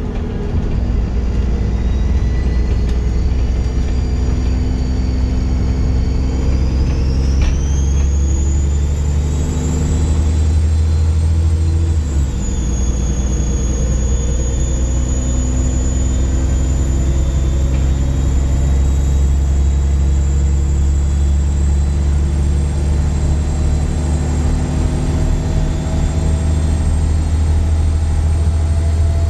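Dennis Trident 2 double-decker bus with a Voith gearbox running under way: a deep, steady diesel engine rumble topped by a loud, squealing turbo whistle. The whistle climbs in pitch as the bus accelerates, about six to eleven seconds in, drops slightly about twelve seconds in and then holds steady.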